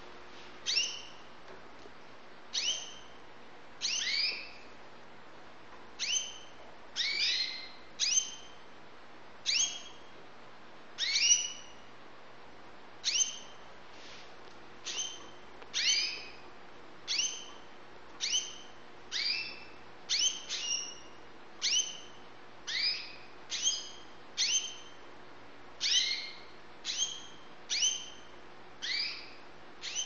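Young white domestic canaries giving short single call notes, about one a second and sometimes two close together. Each note is a brief, high, falling chirp.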